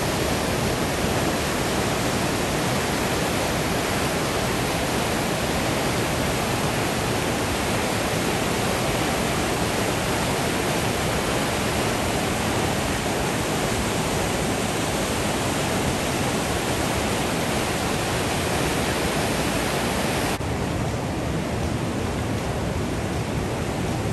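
Whitewater rapids rushing steadily in a river running high after a rise in water level. The tone shifts slightly about twenty seconds in.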